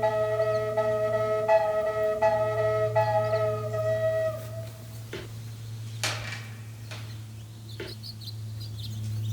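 Triple drone flute music: sustained flute tones over a low steady drone. The melody stops about halfway through while the drone keeps sounding, with a few short, sharp chirps or clicks over it.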